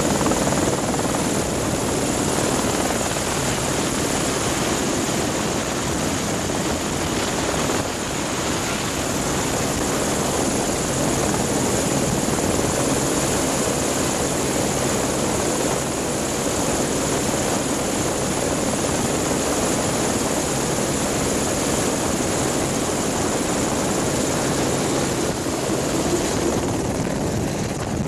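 Turbine helicopter running on the ground close by with its rotor turning: a steady, loud rush of rotor noise with a high, even turbine whine. Near the end the sound shifts as the helicopter lifts off.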